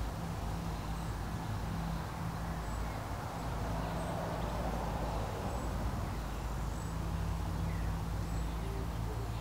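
Steady background ambience: a low hum and rumble, with faint, short high chirps every second or so.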